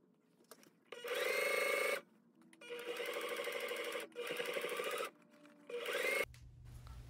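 Electric sewing machine stitching a seam in four short runs, its motor whine rising in pitch as each run starts, with brief pauses between them.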